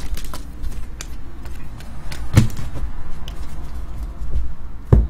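Hands thumbing through a stack of trading cards: faint card-handling clicks over a low rumble, with two dull thumps about two and a half seconds apart.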